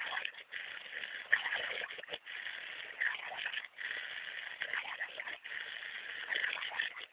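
Water splashing and spraying as a dog plays in it, an uneven rushing noise with brief gaps and a few sharp splashes.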